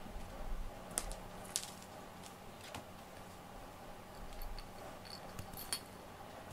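Quiet room tone with a faint steady hum and a handful of soft, scattered clicks and ticks, a few with brief high pings near the end.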